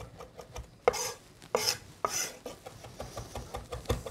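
Chef's knife mincing parsley on a wooden cutting board: a fast, even run of light knocks, about six a second, as the blade rocks up and down with its tip anchored. A few louder scraping strokes come about one to two seconds in.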